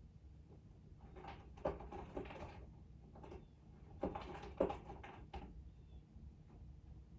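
Two short flurries of knocks and clatters, about a second in and again about four seconds in, over a low steady hum.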